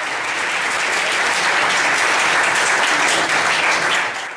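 Audience applauding, swelling over the first second and dying away near the end.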